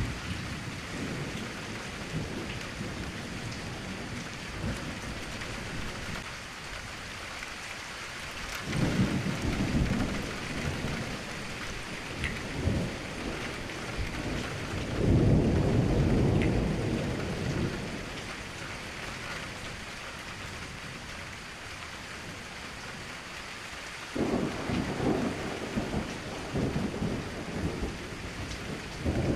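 Steady rain falling with rolling thunder, which rumbles about a third of the way in, loudest just past halfway, and again near the end.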